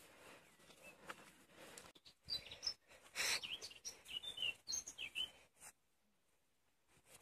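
Small birds chirping in short, repeated calls, mixed with clicks and knocks, for a few seconds; the sound then cuts off abruptly to near silence.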